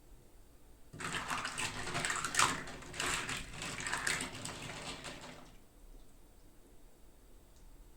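Crinkling and rustling of toy packaging being handled and opened, starting about a second in and dying away about halfway through.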